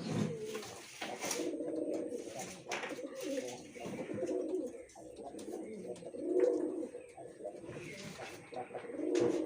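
Pigeons cooing: low, throaty coos that run on and overlap, swelling louder twice, with a few sharp clicks among them.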